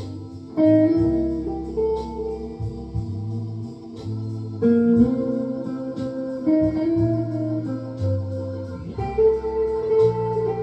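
Electric guitar playing a slow line of single notes and chords, each note ringing on, with low notes held for a second or two underneath.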